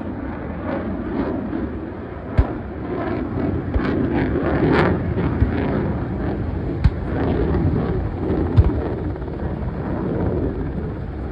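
Pyrotechnic explosions of an airshow mock battle: several sharp bangs, clearest about 2.5, 7 and 8.5 seconds in, over a steady rumble of aircraft engines and wind on the microphone.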